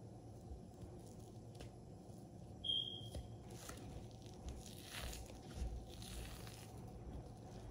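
Fingers peeling the membrane off a rack of raw beef ribs on a tray: faint rustling, tearing and handling sounds. A short high-pitched tone sounds briefly about three seconds in.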